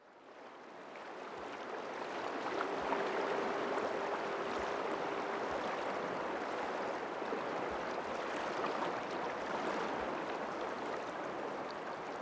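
Steady rush of moving water, fading in from silence over the first few seconds and then holding even.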